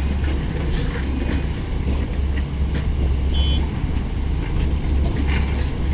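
Heavy diesel earthmoving machinery running with a steady low rumble, with scattered knocks and clanks and a short beep about three and a half seconds in.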